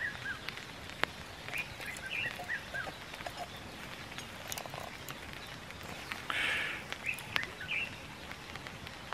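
Scattered bird chirps over quiet outdoor ambience, with a few light clicks and a brief scrape from a corkscrew being twisted into the cork of a wine bottle.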